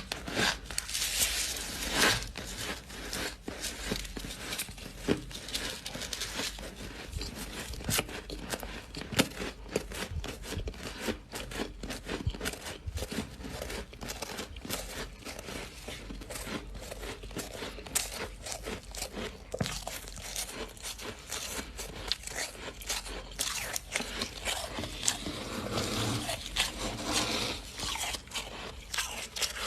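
Freezer frost being chewed: a dense, continuous run of crisp crunching crackles, with louder bites about two seconds in and again near the end.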